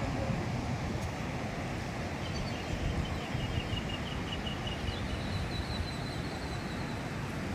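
Wind buffeting the microphone as a steady, uneven outdoor rumble. A faint high chirp repeats several times a second for a few seconds in the middle.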